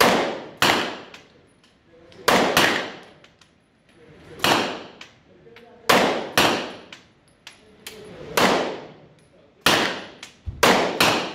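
Glock pistol firing a string of about eleven shots at an uneven pace, some in quick pairs, each shot a sharp crack that rings on in the indoor range.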